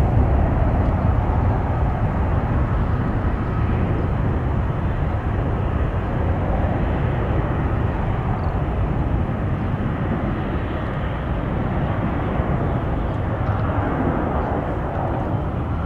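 Jet aircraft engine noise: a steady rushing rumble that eases slightly through the middle and swells a little near the end.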